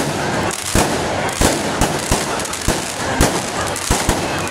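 Aerial fireworks bursting overhead in an irregular series of sharp bangs, about two a second, over a steady noisy background.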